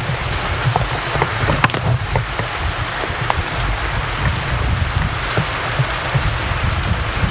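Steady rushing noise with a heavy low rumble on a handheld camcorder's microphone, with scattered small clicks of the camera being handled.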